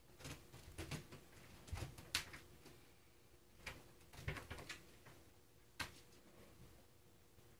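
A cat climbing a wooden cat tower: faint, scattered clicks and knocks at irregular times as its paws and claws grip the post and bat at a hanging string toy.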